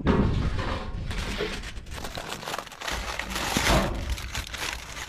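Aluminium foil crinkling and rustling as it is handled and pressed, in a continuous crackle of small crackles, with a heavy thump at the start.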